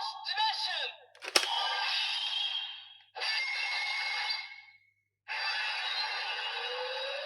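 Electronic sound effects and voice clips played through the small speaker of a DX Ultraman Decker toy, in several separate bursts. A sharp click comes about a second and a half in, and a rising tone sweeps up near the end.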